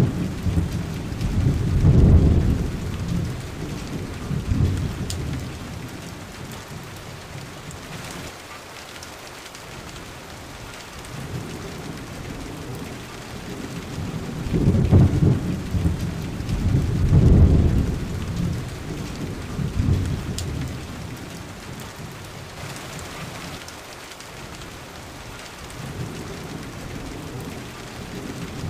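Steady rain with rolling thunder: a deep rumble swells about two seconds in, and two more come close together around the middle.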